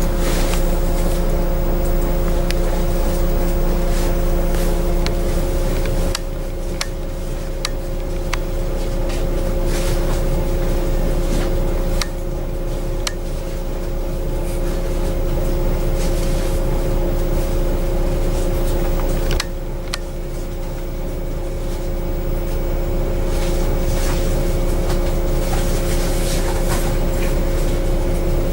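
Bus engine idling, heard from inside the bus, a steady low rumble with a steady two-note hum over it and a few sharp clicks. The loudness drops suddenly twice.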